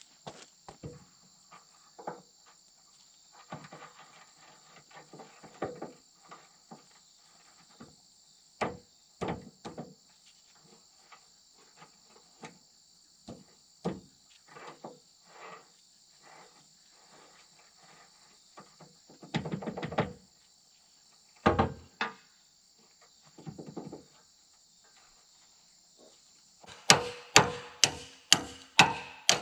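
Hand tools knocking and clanking on the steel of a grapple bucket's hydraulic cylinder in scattered, irregular knocks. Near the end comes a quick run of about eight sharp strikes. A steady high-pitched chirring of insects runs underneath.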